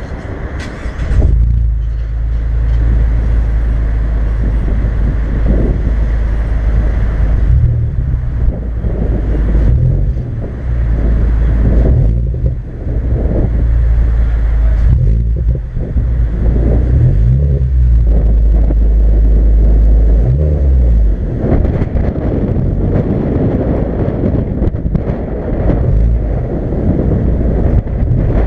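Exhaust of a 2016 Mazda 3's four-cylinder engine through twin Spintech Super Pro Street 9000 mufflers, idling and revved several times, the pitch rising and falling. Heavy wind rumble on the microphone.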